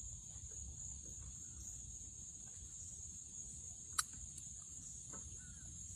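Steady, high-pitched chorus of insects, over a low rumble. A single sharp click about four seconds in.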